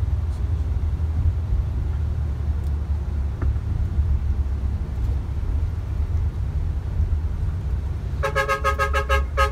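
Steady low rumble of a tour bus driving, heard from inside the cabin. Near the end a vehicle horn sounds in a quick run of short beeps lasting about a second.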